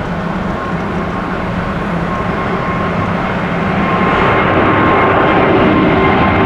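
Airbus A350 jet airliner passing, its Rolls-Royce Trent XWB engines making a loud, steady jet noise with a faint whine. The sound swells over the first few seconds.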